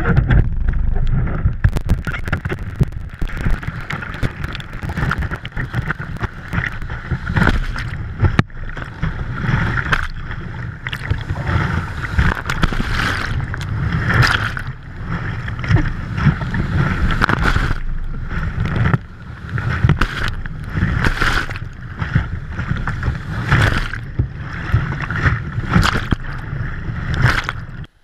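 Whitewater of a flooded river rushing and crashing around a kayak being paddled through rapids: a loud, continuous churning rush with repeated surging splashes.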